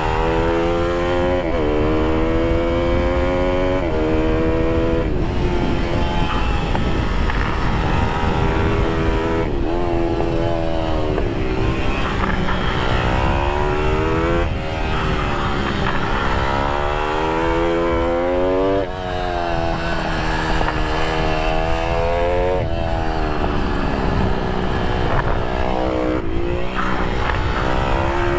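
IMR GP20 pitbike's single-cylinder four-stroke engine at race pace from on board, revving up through the gears. The pitch climbs again and again and drops back sharply at each shift or lift-off into a corner.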